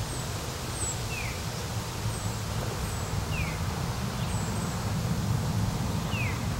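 Outdoor country ambience: a steady low rumble and hiss, with small birds giving short, thin, falling chirps every second or so and a lower falling whistle three times.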